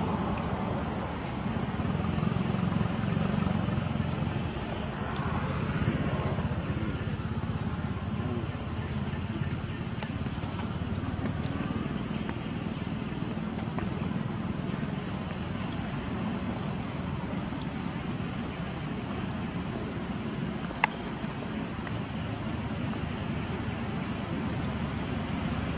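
Steady, high-pitched drone of insects, with a low rumble underneath. One sharp click about 21 seconds in.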